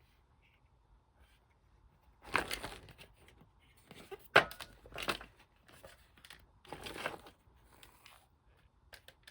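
Handling noises: several short bursts of rustling and crinkling, with a sharp click about four seconds in.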